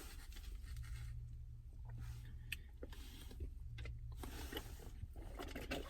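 Quiet background in a car cabin: a low hum that swells and fades, with a few faint clicks and taps of handling.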